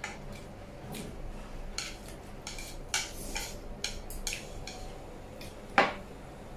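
Chopsticks clicking and scraping on a plate as noodles are picked up and eaten: a series of short, irregular clicks, with one louder sharp click near the end.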